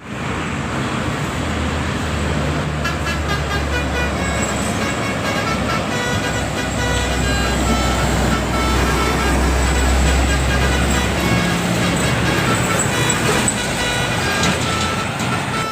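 A Basuri telolet multi-tone bus horn plays a melody of quick, short notes over the low running of a bus engine. The notes begin about two and a half seconds in and continue in strings to the end.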